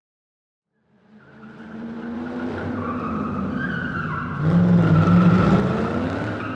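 Car engine with screeching tyres, fading in about a second in, loudest a little past the middle, then fading out.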